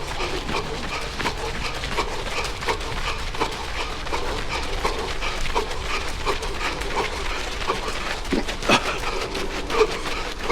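A runner's heavy, wheezing breathing while running hard, in short gasps about every three-quarters of a second.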